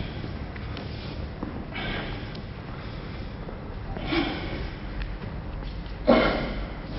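A person's sharp, forceful exhalations, three short bursts about two seconds apart, the last the loudest.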